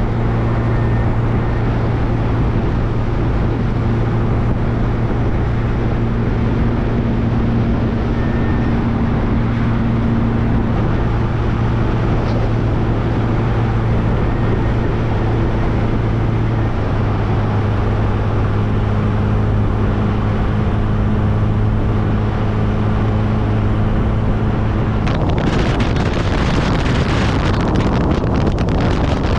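MG Midget Mk3's four-cylinder engine running at a steady cruise, with road and wind noise; the engine note shifts slightly in pitch a few times. Near the end a rush of wind noise rises over it.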